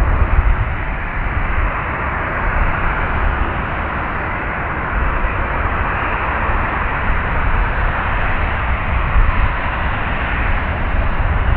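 Boeing 737-800's CFM56-7B turbofan engines heard close up: loud, steady jet noise with a deep rumble underneath.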